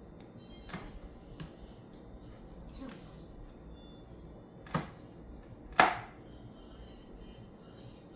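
Kitchen knife chopping green pepper on a cutting board: five separate sharp knocks at an uneven pace, the loudest a little before the end.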